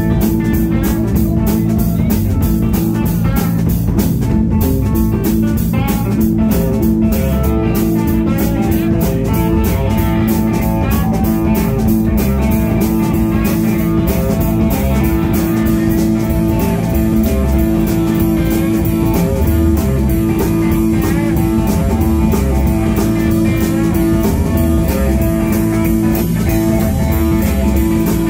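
Live blues-rock band playing: two electric guitars over a steady drum kit beat.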